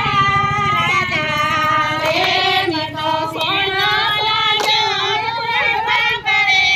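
Women singing a Gujarati Krishna bhajan together in high voices, holding long notes, with a few hand claps keeping time.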